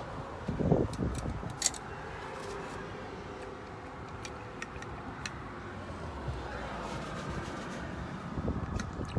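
Painting gear being handled in the back of an open car: a soft thump near the start, then scattered light clicks and rustles as brushes, a rinse jar and rags are moved. A steady hum of outdoor traffic runs underneath.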